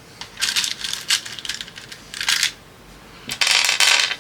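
Small plastic bags and containers of jewellery-making supplies being handled, rustling and clicking in several short bursts, the longest and loudest near the end.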